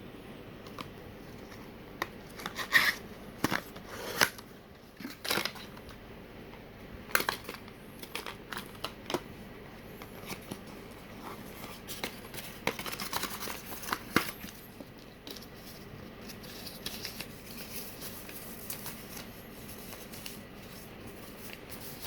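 Packaging of a cough syrup being handled and opened: irregular sharp clicks and crinkling rustles, busiest through the first two-thirds and lighter near the end.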